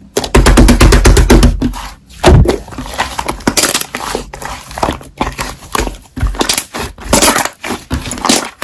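Slime being squeezed, poked and folded by hand, making rapid wet clicks, crackles and squelching pops, with a few heavier thuds.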